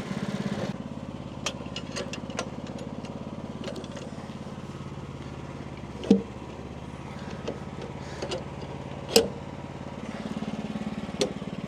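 Portable sawmill's engine idling steadily, with a few light clicks and two sharper knocks about six and nine seconds in.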